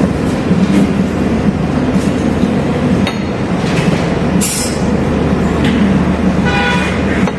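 A loud, steady mechanical drone with a low hum. A brief hiss comes about halfway, and a short high ringing tone near the end.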